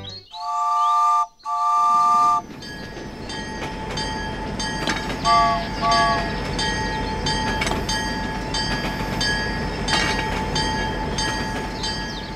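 Battery-powered toy steam locomotive's electronic whistle: two long chord toots, then a steady rhythmic chugging sound effect with clicking wheels on plastic track, broken by two short toots about five seconds in.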